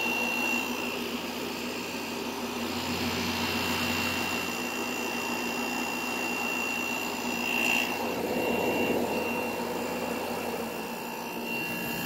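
Kool King window air conditioner running out of its case, its fan blowing and its compressor running, with a steady high whine over the noise of the air.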